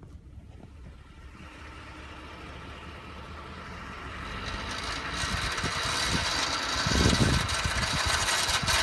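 2010 Ford F-150 pickup running and then picking up speed: a low steady hum at first, then a hiss of road and wind noise that grows steadily louder, with a few low thumps late on. This is the odd noise that has appeared since a 2-inch leveling kit was fitted.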